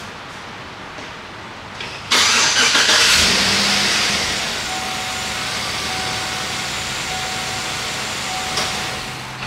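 2008 Chevrolet Silverado's 5.3-litre V8 being started: it cranks and catches suddenly about two seconds in, loudest as it fires up, then settles into a steady idle. The engine has a P0016 cam/crank correlation fault.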